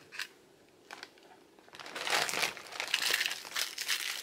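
Clear plastic bag crinkling as it is handled: a brief rustle at the start, then steady crinkling from about two seconds in.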